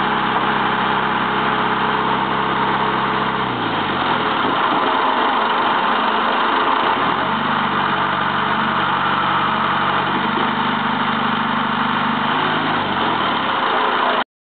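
Cat 416B backhoe loader's four-cylinder turbo diesel engine running; its pitch drops about three and a half seconds in, comes back up about seven seconds in, and drops again near the end, before the sound cuts off abruptly.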